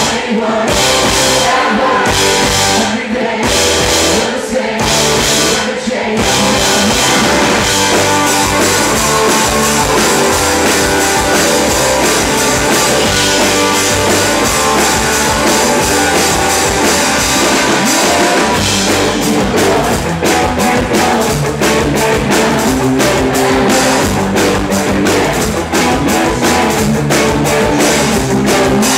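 Live rock band playing loudly: electric guitars, keyboards and drum kit, with a man singing. The drums settle into a steady beat about two-thirds of the way through.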